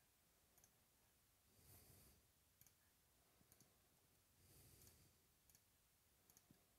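Near silence: room tone with a few faint, scattered clicks and soft swells of hiss about every three seconds.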